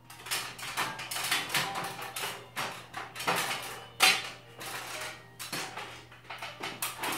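Someone climbing down an aluminium stepladder: a quick, irregular run of clanks and knocks from feet and hands on the metal rungs, the loudest about four seconds in.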